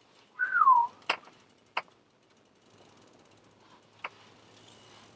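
Ice fishing rod and reel being worked at the hole: light mechanical clicking and ratcheting with a few sharp clicks. A short, loud falling squeal comes about half a second in.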